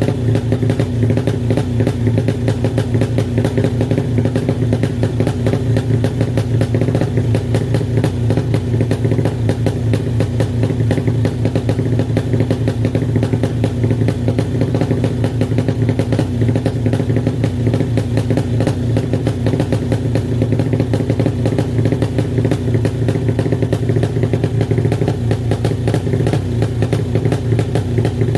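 Honda Supra motorcycle with a 200cc single-cylinder sleeper engine and a new Thai-style aftermarket exhaust, idling steadily with an even, unchanging note.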